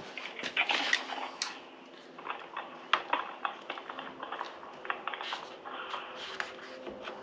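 Spring clamps clicking and knocking as they are clipped onto the edge of a window louver on a van's rear door, over a faint steady hum.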